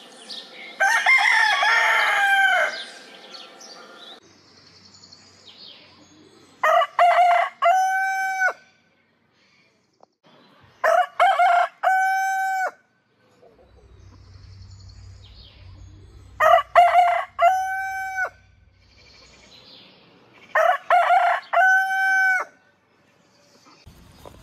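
Roosters crowing: an East Frisian gull rooster crows once about a second in, then Bearded Thuringian roosters crow four times, every four to six seconds. Each crow lasts under two seconds: a run of short notes ending in one long held note.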